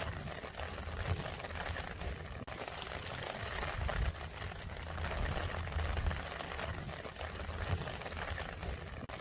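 Steady rain falling, a dense patter of drops, with a low rumble underneath.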